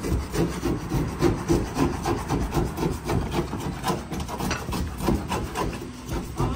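Handsaw cutting wood with steady back-and-forth strokes, about three to four a second.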